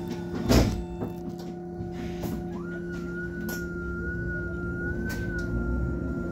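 MAN city bus running, heard from on board: a steady low hum with a whine that climbs about two and a half seconds in and then holds as the bus pulls away. Several sharp knocks and rattles come through, the loudest about half a second in.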